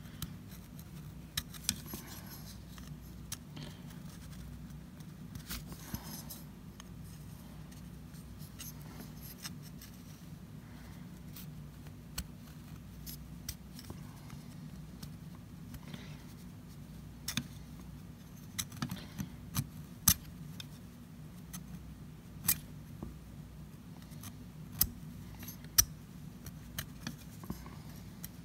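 Ground-down file tip worked through the ring groove of a Jonsered 625 chainsaw piston: faint scraping strokes with scattered sharp metallic ticks, more of them in the second half. It is dressing a damaged ring groove so the ring will glide in it without flopping. A steady low hum runs underneath.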